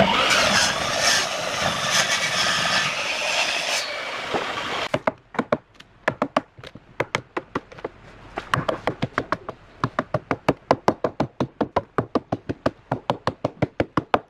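Mitre saw cutting through a log, a dense steady noise that stops about five seconds in. Then a fast, even run of sharp hammer knocks on a log, about four or five a second.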